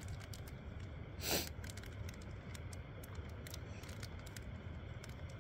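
Wind rumbling on the microphone, with light clicks and crinkles of small paper packets being opened and handled, and one short hissing burst about a second in.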